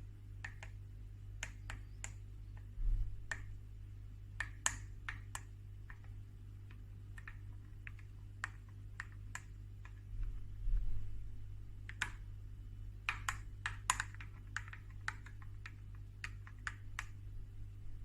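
Irregular light clicks and taps from kitchen items being handled, crowded together for a stretch near the end, with two dull low thumps and a steady low hum underneath.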